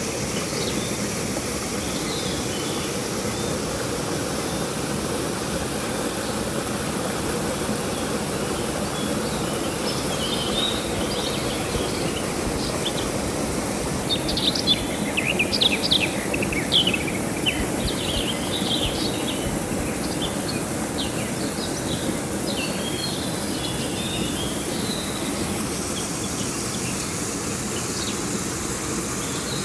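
River water flowing with a steady rushing hiss, under a steady high insect drone. Birds chirp in quick bursts in the middle stretch, loudest around the middle.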